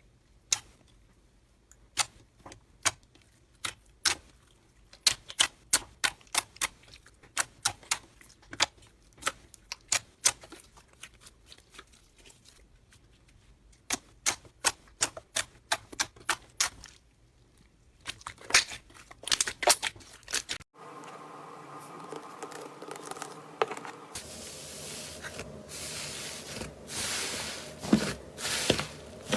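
Slime being pressed and poked by hand, giving sharp clicking pops, at first sparse and then up to about four a second. About two-thirds of the way through the sound changes to a steady hiss and then a louder crackling crunch of crunchy slime being squeezed.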